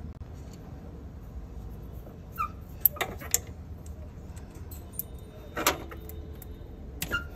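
A few sharp metallic clicks and clinks as the refrigerant pipe fitting is worked off a Suzuki Swift's A/C compressor by hand, heard over a low, steady background hum.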